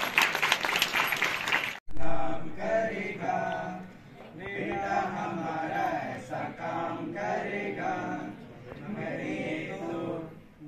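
Clapping for about the first two seconds, then, after a cut, a group of boys singing a song together into a microphone, in held, chant-like phrases.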